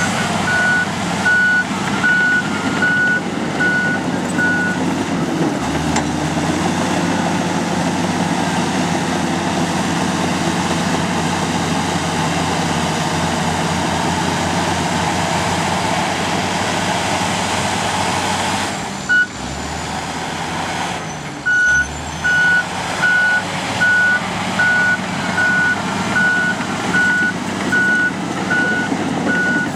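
Komatsu D85 bulldozer's diesel engine running, with its reverse alarm beeping about twice a second for the first few seconds and again through the last eight seconds or so, signalling that the machine is backing up.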